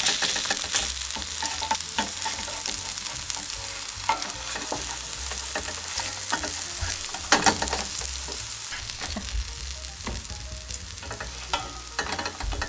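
Vegetable jeon sizzling steadily in plenty of oil in a nonstick pan, with scattered clicks and scrapes of a spatula as the pancakes are turned and lifted, one sharper knock a little past the middle.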